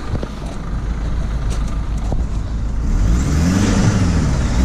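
Mercedes Sprinter diesel van engine running during a hydrogen carbon clean. It idles at first, then from about three seconds in is revved up and down repeatedly in a steady rhythm.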